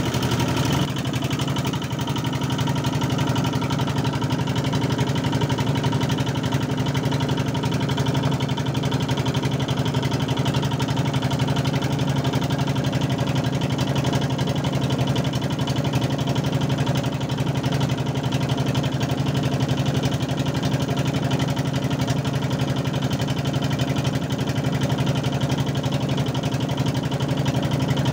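A boat's engine running steadily at an even speed.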